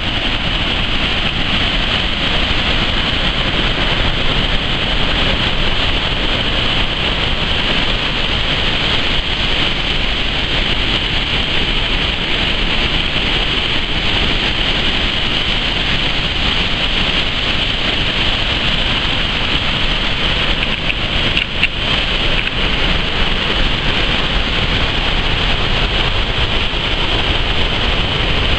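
Waterfall rushing: a loud, steady, unbroken wash of falling water, with one brief click about three-quarters of the way through.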